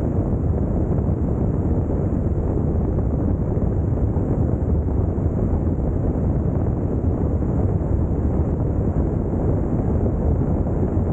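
Steady wind noise buffeting the microphone of a camera mounted on a moving Honda NC750X DCT motorcycle, with vehicle noise underneath.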